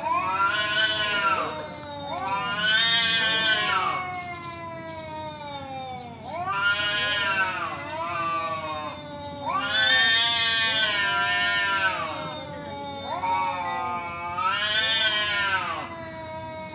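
Two tomcats caterwauling at each other in a standoff: a string of long, wavering yowls that rise and fall in pitch, one after another. It is the threat call of male cats challenging each other to a fight.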